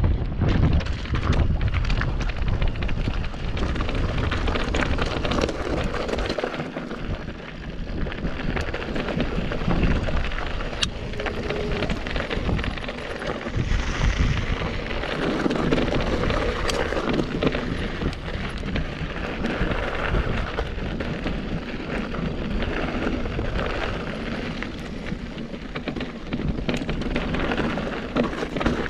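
Mountain bike descending rocky singletrack: tyres crunching over gravel and stones, the bike rattling with many sharp knocks, and wind on the microphone.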